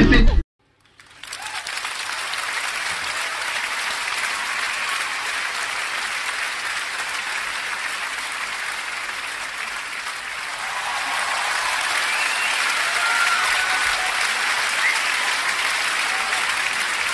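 Crowd applause: after a brief silence about half a second in, the clapping of a large audience fades in and carries on steadily, growing a little louder past the middle.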